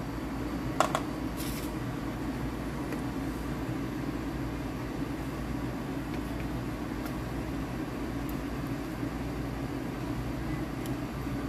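Steady mechanical hum, with a few light clicks and scrapes about a second in as a plastic fork digs into a foil pan of cooked penne.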